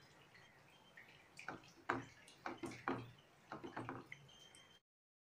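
Thin curry gravy simmering in a steel pan with faint popping, and a cluster of sharp clicks and knocks about halfway through. The sound cuts off suddenly near the end.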